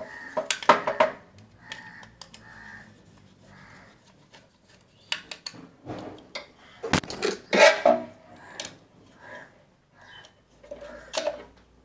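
A small screwdriver clicking and scraping on screw heads and the steel mounting plate of a pump motor starter as the plate's screws are tightened. The sound comes as scattered metallic clicks and clatters, loudest about half a second in and again around seven to eight seconds in.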